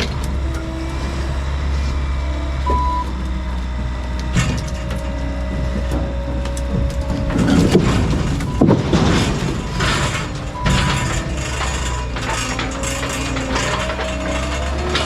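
Skid steer engine running steadily, with clanks and knocks and a stretch of scraping and banging about eight to ten seconds in.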